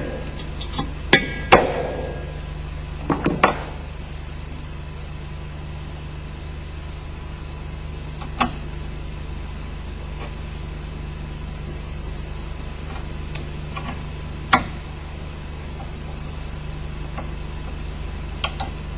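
A few sharp metallic taps, a punch being struck to drive a ball bearing out of the heated crankcase half of an MZ 250 engine. After that there is only a steady low hum, with a faint click now and then.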